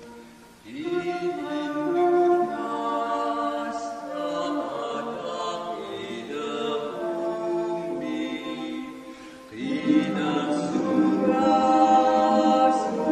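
Choir singing a slow song in Greenlandic. The sound dips to near quiet at the start, a new sung line begins about a second in, and it swells louder again about ten seconds in.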